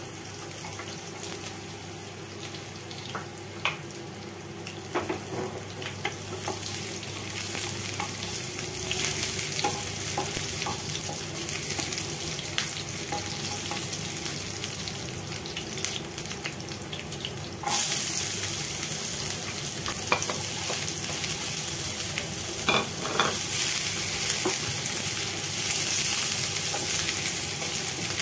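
Sliced garlic and green chillies sizzling in hot oil in a nonstick frying pan, stirred with a wooden spatula that clicks and scrapes against the pan now and then. The sizzle turns suddenly louder and hissier about two-thirds of the way through, with chopped onion frying in the pan by the end.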